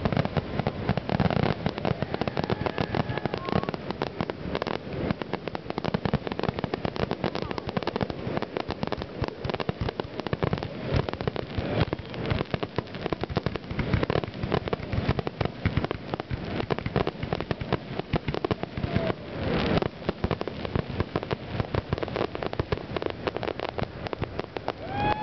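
Aerial firework shells bursting in a dense, unbroken barrage, sharp bangs coming many times a second over continuous crackling.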